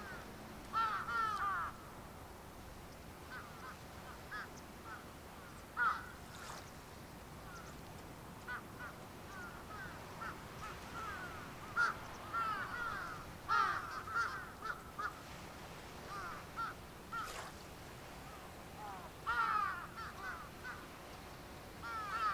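Crows cawing in short runs of calls every few seconds.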